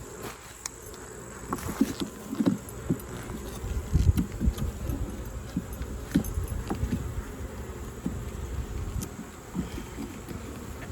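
Honeybees buzzing around an opened hive, with scattered dull knocks and thumps as frames are handled and bees are shaken down into a hive box.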